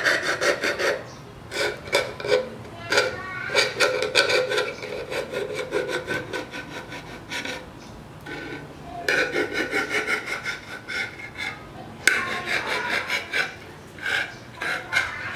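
A metal blade sawing and scraping through the tin lid of a can as it is cut open by hand. Spells of quick, repeated strokes, with short pauses about halfway through and a little later.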